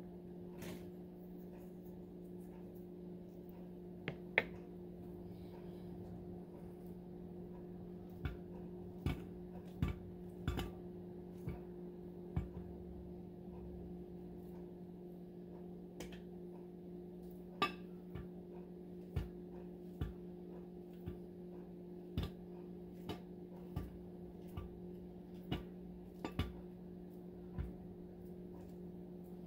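Knife slicing a banana into a dish: light, sharp clicks and taps, a couple about four seconds in, then about one a second from about eight seconds on. A steady low hum lies underneath.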